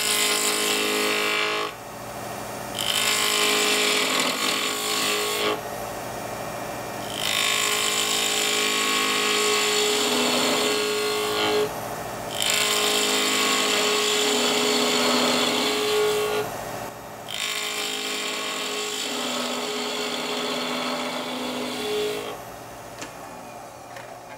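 Wood lathe running while a gouge cuts a chamfer into the end grain of a spinning alder blank. The shaving noise comes in about five passes of a few seconds each with short breaks between, over the lathe's steady hum.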